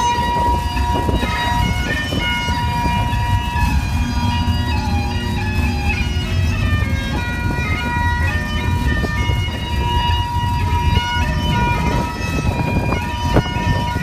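Bagpipes playing a tune: a steady drone under a shifting chanter melody, over a heavy low rumble.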